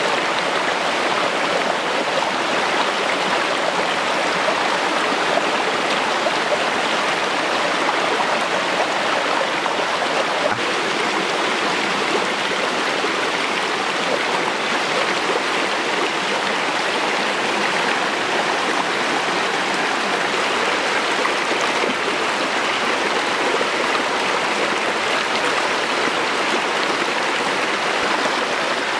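Shallow rocky stream running over and between stones: a steady, even rush of water.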